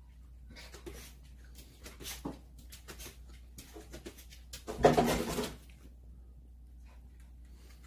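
Small dog's claws tapping and clicking on a hard floor as it hops about, with one short, louder sound with a pitch about five seconds in.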